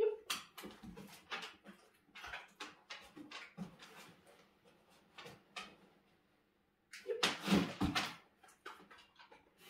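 A black poodle's claws and paws clicking and scuffing on wooden floorboards as it gets up and moves about, in two spells of quick taps, the second louder.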